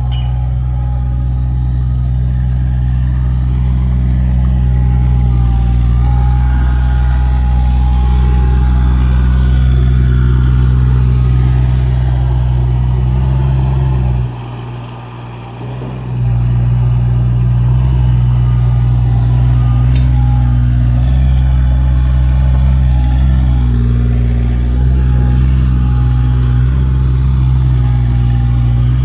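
Diesel engine of a Volvo EC20E mini excavator running steadily. Its level drops sharply for about two seconds midway, then returns.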